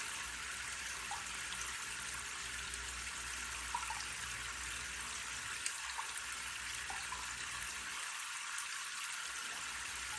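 Water spraying steadily from an RV shower head into a bucket, an even hiss with a few faint ticks.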